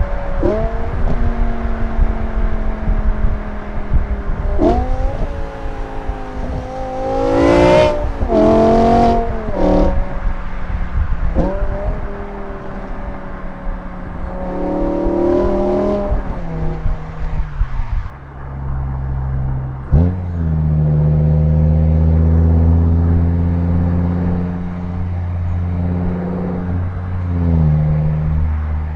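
BMW S85 5.0-litre naturally aspirated V10 of an M6 E63 in stock exhaust trim, heard while driving. The revs jump sharply several times, with a stronger rev burst about a third of the way in, each jump easing off slowly. Over the last third the engine settles into a lower, steady drone.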